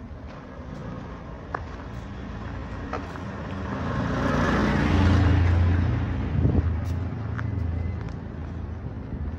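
A road vehicle passing close by on the street, its engine and tyre noise swelling to a peak about halfway through and fading away, over a steady low engine hum of traffic.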